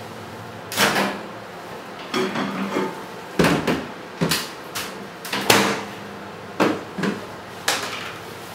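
Microwave oven door opened and shut, with a string of about ten short clunks and knocks as a covered dish of cooked potatoes is taken out and it and its plate lid are set down on the counter; the loudest knock comes a little past the middle.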